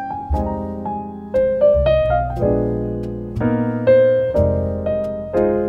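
Background piano music: slow notes and chords struck about once a second over low bass notes, each fading away after it is played.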